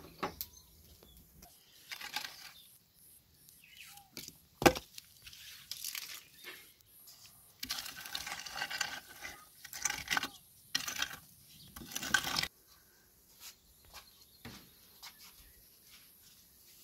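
A single sharp knock about five seconds in, then several seconds of scraping and rattling in bursts as a long wooden-handled rake works the embers and ash inside a wood-fired oven.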